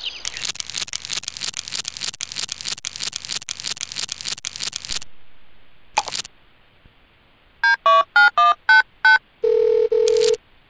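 Rapid scratching strokes for the first half, then a click and a telephone keypad dialing a number: a quick run of about seven beeps of varying pitch, followed by short bursts of the ringing tone on the line.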